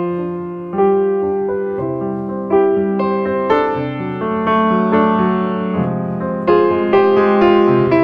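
Slow piano music: chords and melody notes struck about once a second, each ringing and fading before the next.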